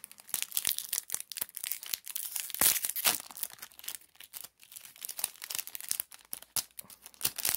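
Trading cards handled and flicked through by hand: a run of quick crinkly rustles and card-on-card snaps, the loudest a little before three seconds in.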